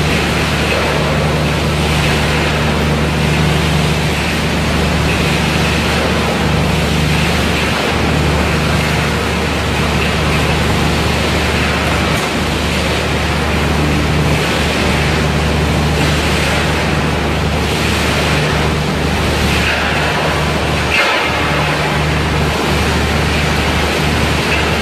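Scrap metal recycling line running: conveyors, separators and dust collector make a loud, steady machine noise with a low hum underneath.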